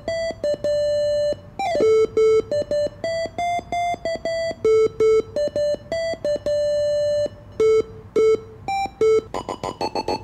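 Homemade capacitive-touch synthesizer on a milled circuit board, played by fingers on its pads through small desktop speakers: buzzy electronic beeps that start and stop abruptly and step between a handful of pitches. Near the end it switches to a fast stutter of higher notes.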